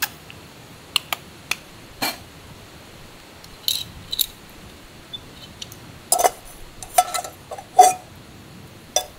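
Scattered sharp clicks and metal clinks, about a dozen, most of them between about six and eight seconds in: a frying pan knocking on a metal wood-burning camp stove as it is tilted to spread the oil, along with pops from the wood fire beneath.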